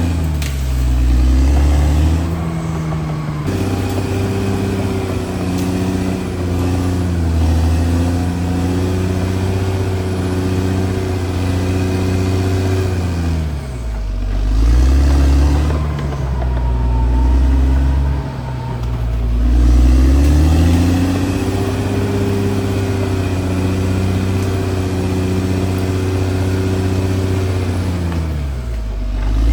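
CAT D6R XL bulldozer's diesel engine running hard, its pitch sagging and climbing back up about four times: near the start, about 14 s in, about 20 s in and near the end, with a deeper rumble swelling at each dip.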